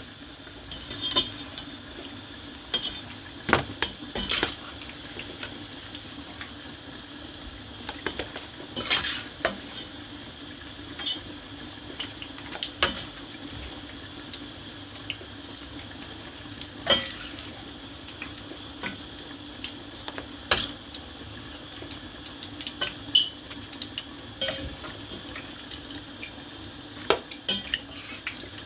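Metal slotted spoon clinking and scraping against a stainless steel pot while fried plantain slices are lifted out of the oil, in scattered sharp knocks over steady background noise.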